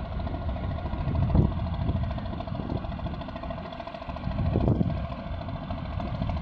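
Small harbour workboat's diesel engine running steadily with a pulsing hum, and two brief low swells of rumble.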